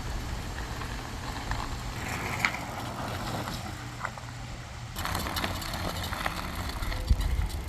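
Nakto Folding OX fat-tire e-bike being ridden: a steady low hum and rumble of the motor and tyres under wind noise, with a few small clicks. The noise turns brighter about five seconds in.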